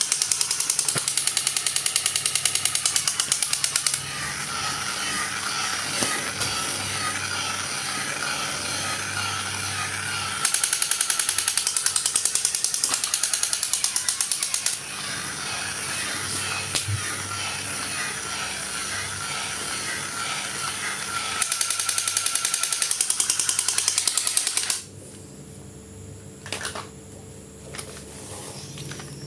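A small motor-driven mechanism whirring with fast, rapid clicking and a wavering whine. It grows louder in three stretches and stops about 25 seconds in.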